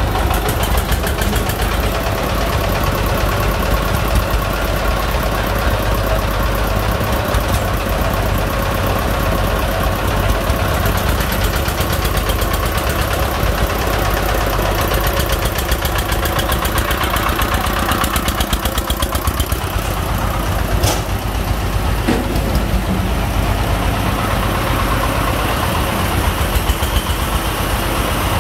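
Single-cylinder diesel engine of a công nông farm truck running with a rapid, even chugging.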